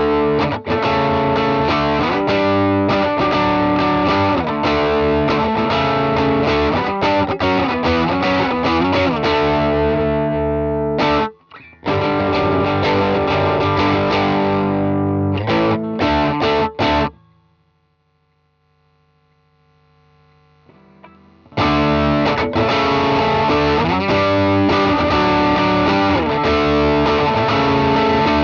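Electric guitar on its P90 bridge pickup played through a DigiTech Bad Monkey overdrive pedal: distorted chords and riffs. The playing breaks off briefly about eleven seconds in, stops for about four seconds past the middle, then starts again.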